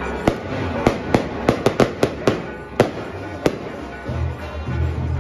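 Firecrackers going off: about ten sharp bangs in quick, irregular succession over about three seconds, with music playing underneath.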